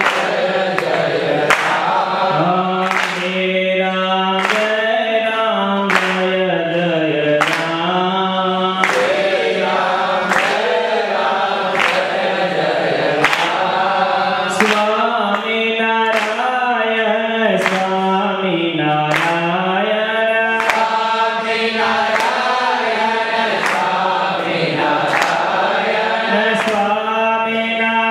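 A devotional Sanskrit stotra chanted as a melody into a microphone, the tune rising and falling in long held notes. Sharp beats keep time about every one and a half seconds.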